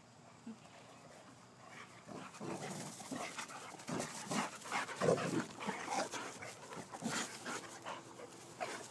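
Two boxer dogs play-fighting close by, making rough growling and panting noises. The sounds start about two seconds in and come in a dense, irregular run.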